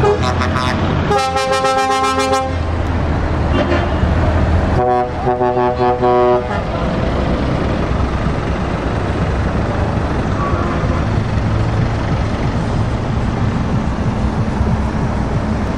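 Truck air horns blast twice, about a second in and again about five seconds in, each for roughly a second and a half. Heavy truck diesel engines rumble steadily underneath as the trucks pull away.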